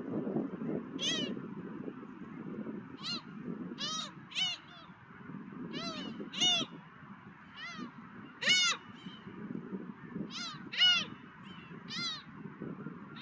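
Seagulls calling: about a dozen short, rising-then-falling cries at irregular intervals, a few of them loud, over steady wind noise.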